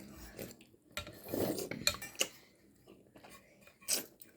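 Spoons clinking and scraping against soup cups, with a few scattered short knocks.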